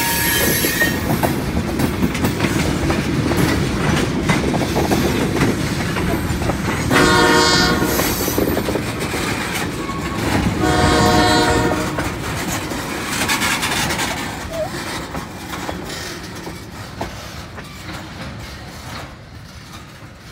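Freight train of tank cars rolling past, steel wheels clicking over the rail joints under a steady rumble. Two brief pitched tones sound over it, about seven and eleven seconds in. The rumble fades over the last several seconds as the end of the train moves away.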